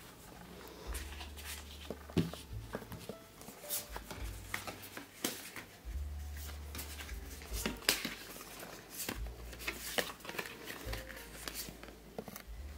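Paper postcards rustling and clicking as they are shuffled and sorted by hand, with quick irregular taps against the cardboard box. A low hum comes and goes underneath.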